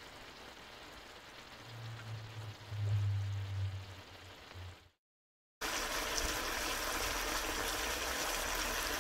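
Soft, even bubbling and hiss of liquid simmering in a wok, with a low hum for a couple of seconds. It drops to dead silence for a moment about five seconds in, then the simmering resumes, steadier and a little louder.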